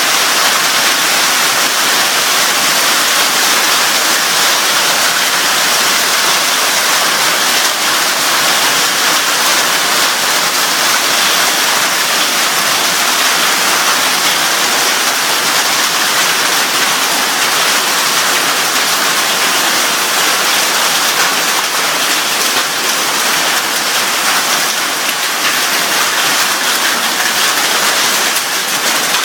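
Heavy hail and rain falling in a storm, a loud, dense, steady hiss of countless impacts.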